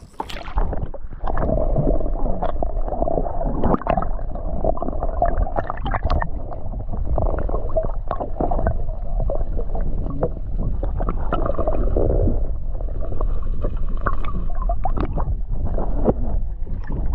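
Water gurgling and sloshing close to the microphone, with irregular knocks and splashes.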